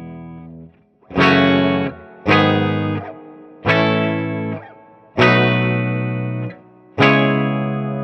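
Overdriven electric guitar, a '61 reissue Gibson SG through a hand-wired Fender Deluxe Reverb Reissue amp and an overdrive pedal: five chords struck about a second and a half apart, each held briefly and then cut short, the last left ringing out.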